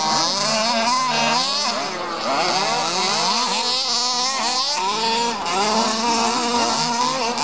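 Several 1/5-scale petrol RC cars' small two-stroke engines revving up and down together. Their overlapping pitches rise and fall independently as the cars accelerate and back off.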